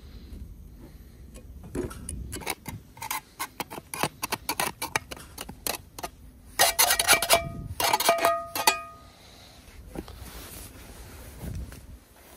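Metal pan scraped and tapped with a knife, a rapid run of sharp clicks. About halfway through, the upturned pan is knocked several times on a wooden board to free risen dough, ringing briefly with each knock.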